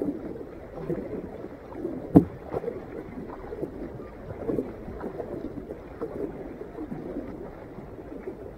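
Sea kayak being paddled: the double-bladed paddle dips and pulls through calm sea water in splashy strokes about once a second, with water dripping and washing along the hull. One sharp knock about two seconds in stands out above the strokes.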